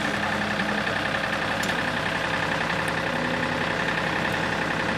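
An engine running steadily at idle, an even hum with no changes.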